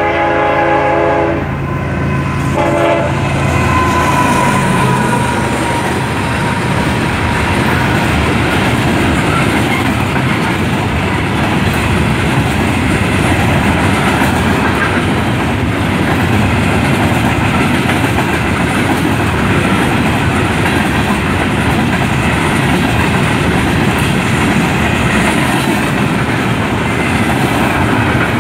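Freight train horn sounding at a level crossing: a blast that ends about a second and a half in, then a short blast near three seconds. The Ferromex GE ES44AC diesel locomotive and a long string of gondola freight cars then roll past, with a steady rumble and clatter of wheels on rail.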